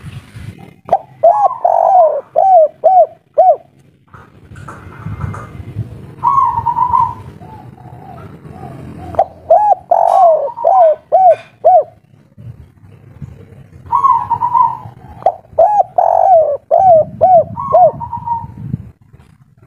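Spotted dove cooing its 'kuk 3' song in three bouts, each a quick run of short rising-and-falling coos at about two a second, with a few longer, higher coos between them.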